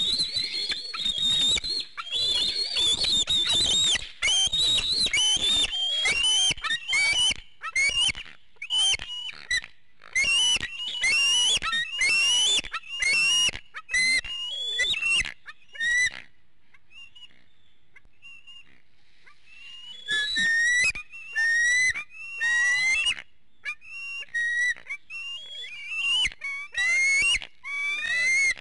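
Bald eaglets calling: a fast run of loud, high, whistling squeals that bend in pitch, stopping for a few seconds just past the middle and then starting again. Typical food-begging calls at feeding time.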